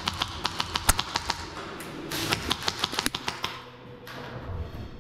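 Rapid, irregular sharp clicks in two runs of about a second and a half each, dying away to a quieter stretch near the end.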